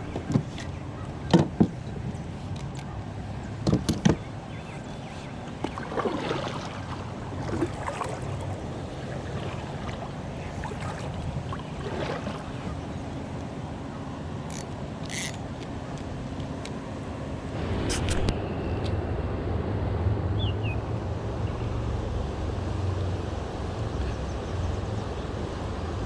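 Several sharp knocks on a small fishing boat in the first few seconds over a steady low hum, which grows louder from a little past the middle.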